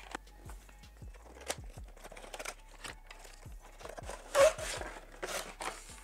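Cardboard fan box being handled and opened: a run of small taps and clicks, with a louder rustling scrape of cardboard about four and a half seconds in. Faint background music underneath.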